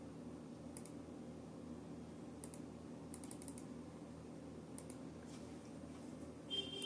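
Faint, scattered clicks of a computer keyboard and mouse, including a quick run of about five taps near the middle, over a steady low room hum. A short high beep starts near the end.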